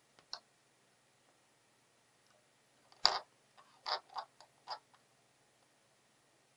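Light clicks and knocks of a small circuit board and soldering iron being handled against a wooden tabletop during hand soldering. There is one faint click just after the start, a sharper knock about three seconds in, then a quick run of three or four clicks.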